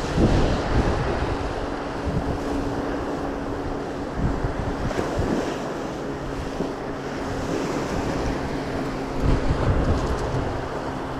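Surf washing on a beach with wind buffeting the microphone in gusts, under a faint steady hum.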